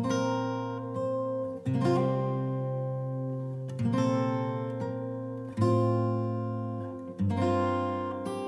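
Background music: acoustic guitar chords, strummed about every second and a half to two seconds and left to ring.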